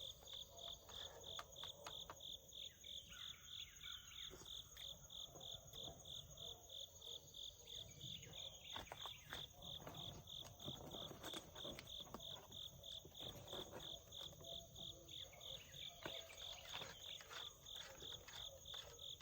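Faint night chorus of crickets chirping in a steady, evenly spaced rhythm, with a thin continuous high trill above it and a few light clicks.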